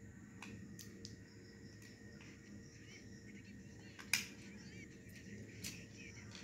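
Faint clicks and scraping of a small screwdriver turning out the screws at the back of a plastic fluorescent tube-light lamp holder, with a sharper click about four seconds in and another near the end.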